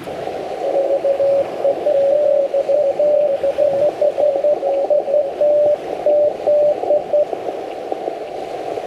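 Yaesu FT-891 receiver audio: hiss through a narrow CW filter, with another station's Morse code signal keyed in dots and dashes at one steady pitch, stopping about seven seconds in.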